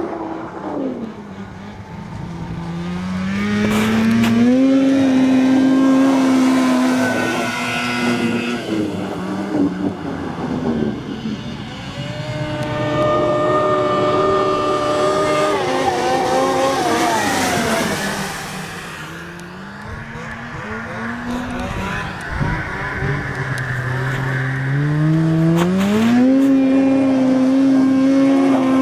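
Two-stroke snowmobile engines revving up and holding a high, steady pitch for a few seconds before dropping back. This happens three times.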